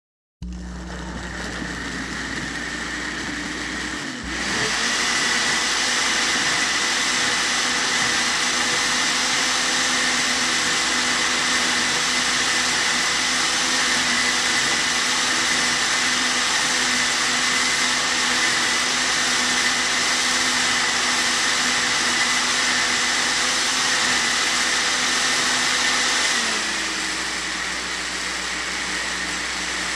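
Electric kitchen blender running. It starts at a lower speed, rises to a higher, louder and steadier whine about four seconds in, and drops back to the lower speed near the end.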